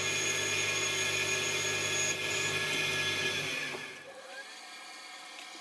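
Metal lathe running while a boring bar cuts inside the spinning workpiece, a steady whir of many tones. About three and a half seconds in, the pitch slides down and the sound fades, leaving a quieter steady lathe hum.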